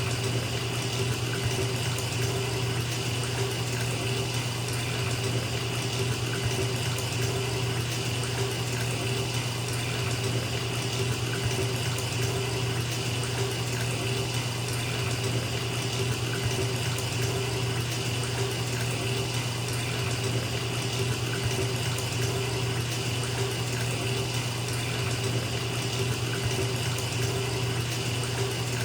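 Bathtub filling from a running tap: a steady, even rush of water pouring into the tub.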